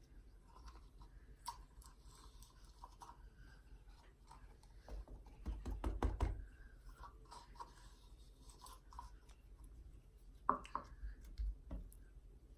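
Hands working slime out of a small plastic container: quiet sticky handling noises and small clicks, with a louder spell of low thuds and crackles about five to six seconds in and a short clatter near the end.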